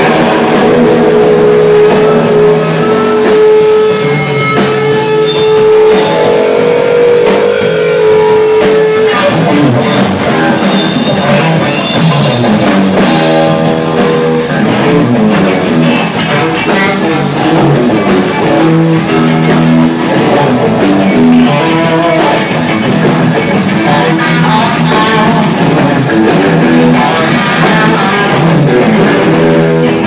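Live blues-rock band playing loud: electric guitars over a drum kit, with a long held note over the first several seconds.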